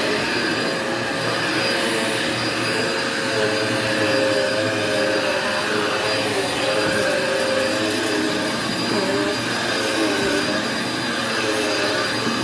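Vacuum cleaner running steadily on carpet, with a steady motor whine over its airflow noise.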